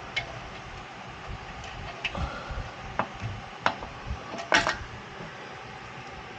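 Metal hand tools clinking against each other and against the wheel hub: about five sharp, separate clinks and knocks over a faint steady hiss, the loudest about four and a half seconds in, with a short ring after it.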